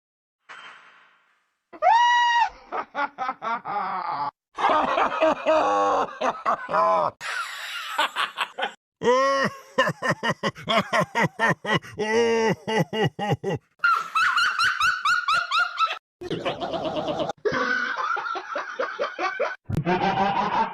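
A string of different laugh sound effects spliced back to back, each a short burst of pulsing, pitched laughter that cuts off suddenly before the next begins. It starts with about a second of silence.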